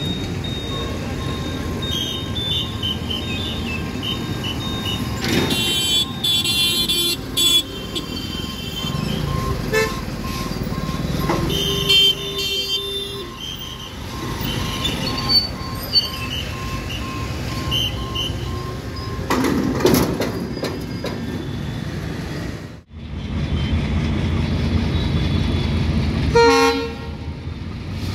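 Waiting road traffic: motorbike and auto-rickshaw engines running, with vehicle horns honking several times. A repeating beep sounds through the first half, and a louder horn sounds near the end.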